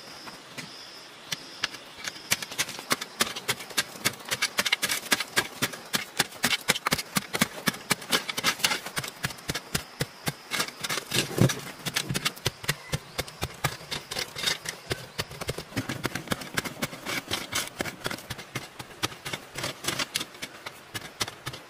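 Hands digging and scooping loose, dry soil: quick repeated scrapes with clods of earth pattering down, a few strokes a second.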